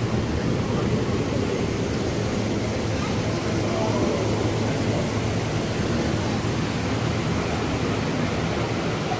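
Steady low hum and rushing noise of a moving ride boat gliding through a greenhouse channel, with no sharp events.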